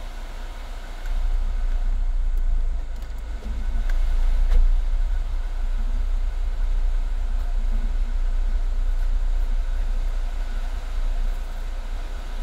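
Steady low rumble of a car heard from inside its cabin, getting louder about a second in.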